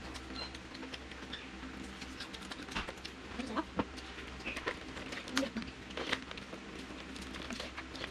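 Eating and food handling: scattered small clicks and crackles as crispy fried chicken is pulled from a paper bucket and eaten, and paper packaging is handled, over a low steady hum.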